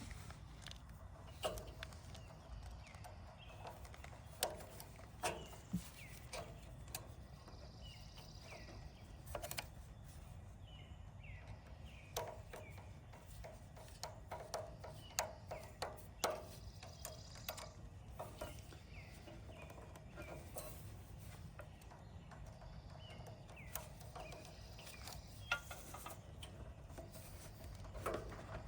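Scattered clicks and light knocks at an uneven pace over a steady low hum, with faint short chirps now and then.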